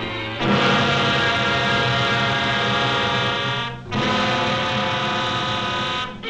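Orchestral cartoon score sounding two long held brass chords, one after the other with a short break between them.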